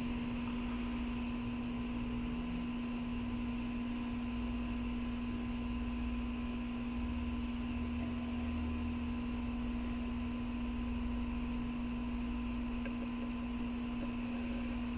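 A steady hum: one unchanging tone with a fainter higher one above it, over a low rumble.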